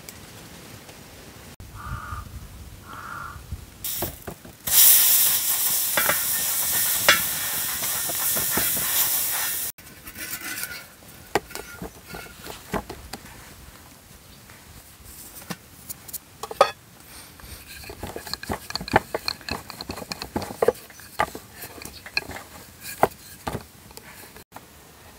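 Hands working bread dough on a floured wooden board: soft, irregular taps and pats as the dough is pressed flat, then a wooden rolling pin rolling it out. About five seconds in comes a loud, even hissing rustle that stops abruptly about ten seconds in.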